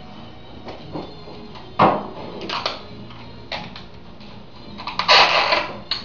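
Handling sounds of beehive parts being put in place: a sharp knock about two seconds in, a few lighter taps, then a longer sliding scrape about five seconds in.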